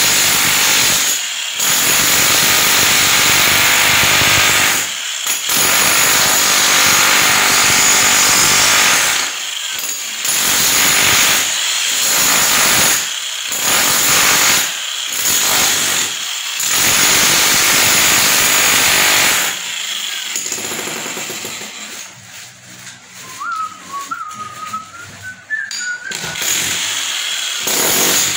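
Electric demolition hammer chiselling into masonry in repeated bursts of a few seconds with short pauses between them. Near the end the tool works more quietly, and a faint wavering whistle is heard.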